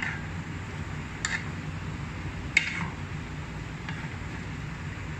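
A cooking spoon knocking against a pot four times while cubed chicken is stirred in hot oil, over a steady frying hiss.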